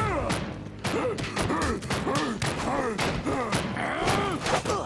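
Cartoon sound effects of a clock mechanism being smashed apart: a rapid run of knocks and crashes mixed with short springy boings that rise and fall in pitch.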